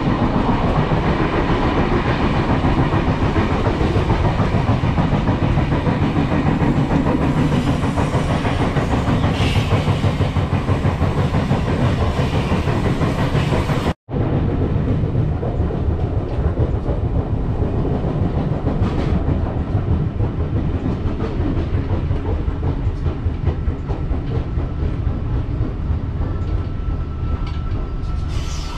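Steady rumble and clickety-clack of wheels on rails heard from inside a V set intercity electric train carriage in motion. The sound breaks off for an instant about halfway through, and a thin steady tone joins the rumble near the end as the train comes into the station.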